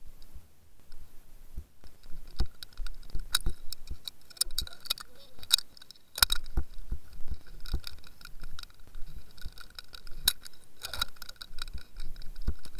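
Irregular sharp clicks, knocks and rattles from the fishing rig and its camera housing moving underwater, with a faint steady high hum underneath.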